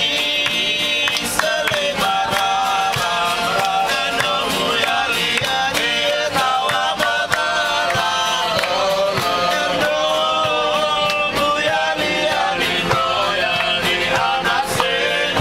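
Live acoustic guitar strummed steadily with men singing along in a group.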